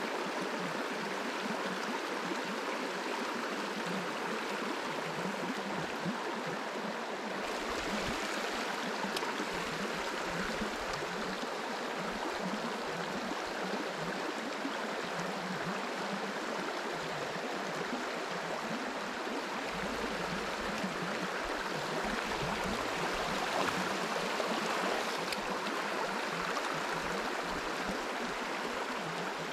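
Shallow river running over a stony riffle: a steady rush of water.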